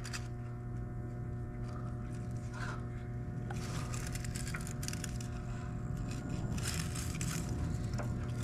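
Parts being pulled and handled on a small lawn mower engine: scattered scrapes and clicks, one cluster about four seconds in and another around seven seconds, over a steady low hum.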